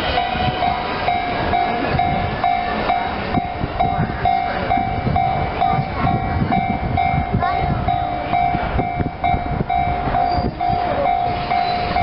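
Japanese level-crossing warning bell ringing steadily, about two strokes a second, over the rumble and wheel clatter of a JR East E231-series electric commuter train passing over the crossing.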